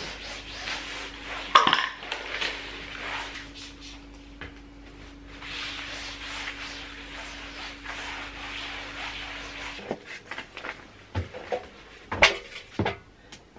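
Spray-bottle squirts and a cloth wiping over a foam play mat, heard as patches of hiss over a steady low hum, with one sharp knock about one and a half seconds in. Near the end the hum stops and a few knocks and clatters of objects being handled follow, the loudest shortly before the end.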